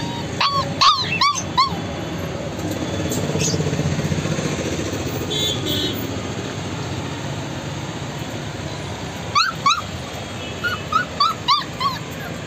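Labrador puppies yelping and whimpering in short, high-pitched cries: a quick run of about four near the start and another run of six or seven near the end. Between the two runs a low steady hum swells for a few seconds.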